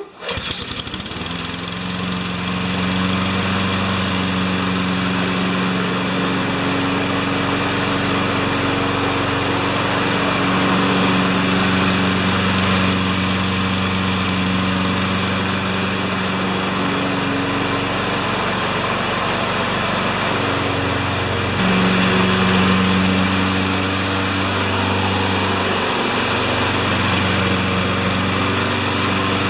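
Honda HRR216 mower's single-cylinder four-stroke engine catching and running steadily, with no air filter fitted. It is burning off oil that seeped into the cylinder while the mower sat on its nose. It runs briefly a little louder about two-thirds of the way through.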